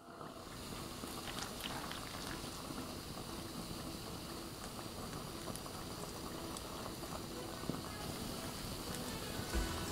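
Broth bubbling steadily in a pot over a tabletop burner, a continuous fizz with small pops. Music comes in near the end.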